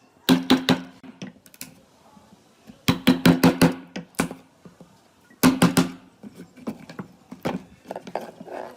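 Hammer blows on wood: three quick bursts of about five sharp strikes each, every strike ringing briefly through the boards.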